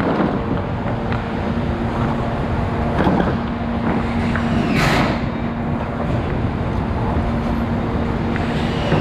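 A motor runs with a steady hum over a low rumble, with a brief hiss about five seconds in.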